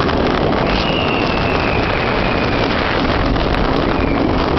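Olympia Looping roller coaster train running at speed along its steel track, with wind rushing over the microphone. A thin high whine lasts about two seconds near the start.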